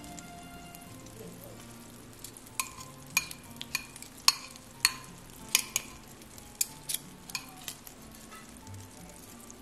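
Metal kitchen tongs clinking against a glass bowl while dipping bread into egg batter: a dozen or so sharp, uneven clinks from about two seconds in.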